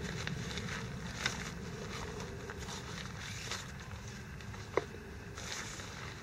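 Rustling and handling of a nylon stuff sack. Then a short metallic clink a little past halfway, as a stainless steel vacuum flask is set down on a wooden bench, over a steady low rumble.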